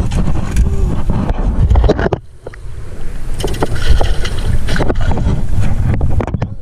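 Wind buffeting the microphone aboard an aluminium fishing boat, with scattered knocks and clicks from handling against the hull. The wind drops away briefly a little over two seconds in.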